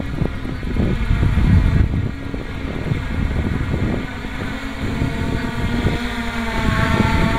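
Multirotor hexacopter's electric motors and propellers humming at several steady pitches as it hovers, the hum growing clearer in the second half as it comes closer. Heavy wind buffets the microphone throughout.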